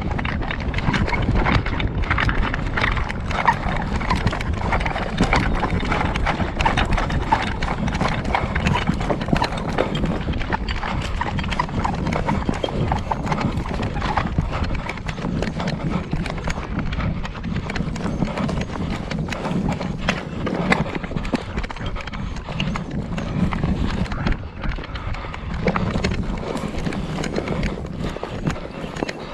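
A person running hard over rough ground: rapid, rhythmic footfalls with rustling of clothing and gear.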